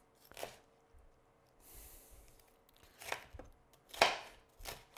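Chef's knife slicing an orange bell pepper on a cutting board: about four sharp knocks of the blade against the board, spaced unevenly, the loudest about four seconds in.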